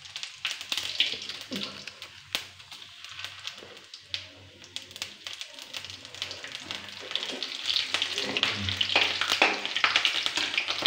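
Cumin seeds, bay leaves and dried red chilli spluttering in hot oil in a kadhai for a tadka: a dense crackle of small pops over a frying hiss, growing louder in the last few seconds.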